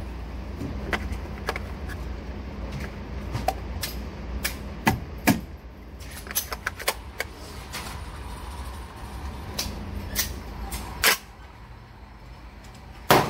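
Irregular metallic clicks and clacks of a bullpup 12-gauge shotgun being handled and loaded with slugs, over a steady low hum that fades about eleven seconds in. One louder sharp knock comes near the end.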